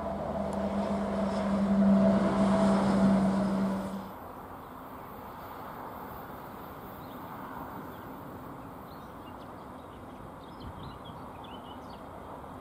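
A steady engine hum from passing road traffic, loudest about two to three seconds in, cuts off abruptly about four seconds in. After it comes a lower, steady outdoor rumble with wind on the microphone and a few faint bird chirps.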